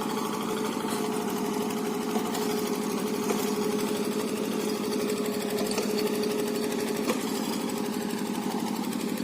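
A small engine running steadily at a constant speed, with a fast even pulse.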